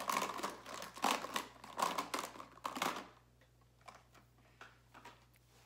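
Plastic lip balm tubes rattling and clicking against each other as they are rummaged through in a small container, for about three seconds, followed by a few separate light clicks.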